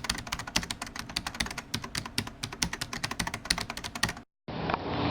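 Rapid, irregular keyboard typing clicks for about four seconds. Then an abrupt cut to a brief silence, and near the end the Antonov An-2's nine-cylinder Shvetsov ASh-62 radial engine comes in running steadily and getting louder.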